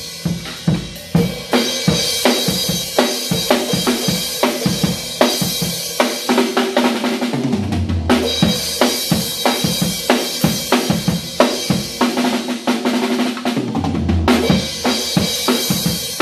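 Acoustic drum kit played by a child: a busy beat of bass drum, snare and cymbals, twice breaking into a longer fill of ringing drum hits that ends on low booming strokes.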